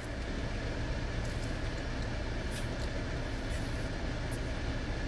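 Steady low rumble of a car's engine idling, heard from inside the cabin, with a few faint ticks over it.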